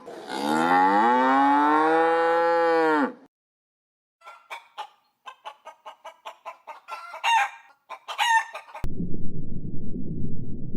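A long, drawn-out pitched animal call lasting about three seconds, then a chicken clucking in quick short notes that build to two louder squawks. A low rumbling noise cuts in near the end.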